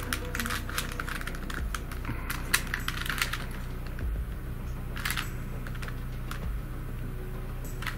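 Plastic pieces of a Curvy Chop Cube twisty puzzle clicking and clacking as its faces are turned by hand in a rapid, irregular run of moves: a sequence to flip one edge. A few clacks stand out louder, around a third of the way in and near the middle.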